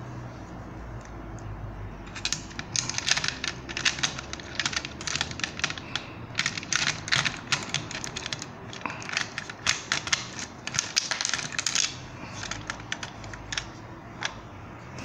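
Small hard-plastic clicks and rattles in a quick, irregular run, starting about two seconds in and stopping near the end, as an action figure is handled and fitted into a plastic toy vehicle's cockpit.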